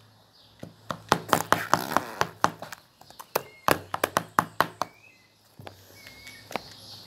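Slime being squeezed and worked in a clear plastic container, giving a rapid run of small sticky clicks and crackles that thins out after about five seconds.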